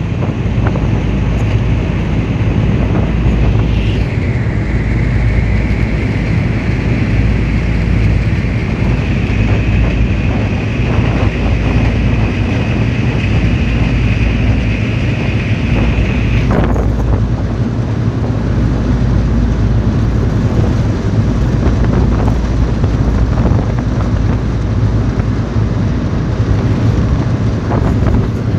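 Ferry engine running steadily, a loud low hum heard from the back of the boat, with wind buffeting the microphone. About four seconds in a high whine joins, rising slightly, and cuts off suddenly about sixteen seconds in.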